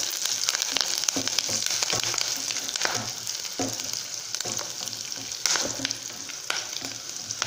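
Sliced onions and curry leaves sizzling in hot oil in a pan, stirred with a spatula that scrapes and knocks against the pan at irregular intervals.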